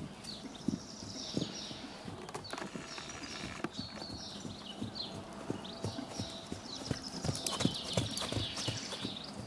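Hoofbeats of a young Lusitano horse moving at speed around a lunge circle on a sand arena: soft, muffled thuds in an uneven running rhythm, loudest as it passes close about eight seconds in.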